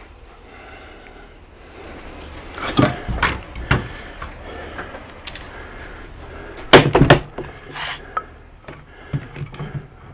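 Knocks and clatter of a wood block and tools being handled and set down on a wooden workbench. There are a couple of knocks about three to four seconds in, the loudest cluster of knocks about seven seconds in, and lighter clicks near the end.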